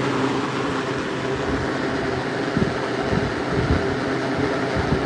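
Vintage General Electric box fan running on its high speed: a steady motor hum over rushing air, with irregular low thumps of the airflow buffeting the microphone.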